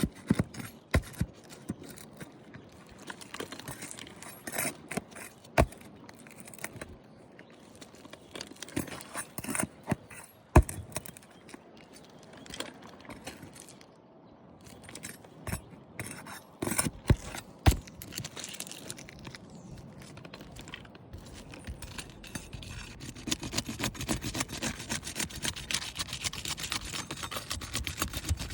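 Pry bar working under asphalt roof shingles to pop out the roofing nails: scattered sharp metal clicks and knocks with scraping and rubbing in between.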